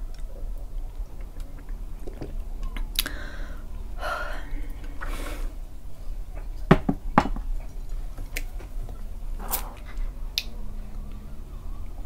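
Sipping a drink through a straw from a glass jar, with swallowing and mouth sounds in close-miked ASMR. About seven seconds in come two sharp knocks, followed by a few lighter clicks.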